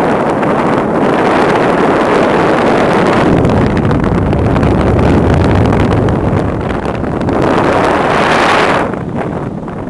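Wind rushing over the camera microphone during a tandem paraglider flight: a loud, gusting rumble that eases near the end.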